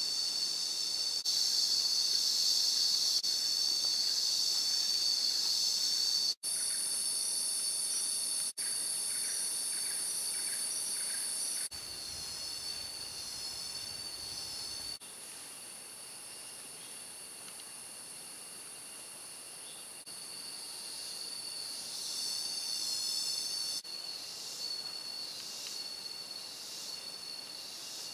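Rainforest insect chorus: steady high-pitched shrilling and trilling, changing abruptly several times, with a pulsing call repeating about once a second near the end.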